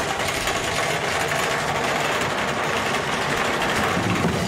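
A trawl net paying out down a trawler's stern ramp into the wake: a steady mix of machinery noise and rushing, churning water.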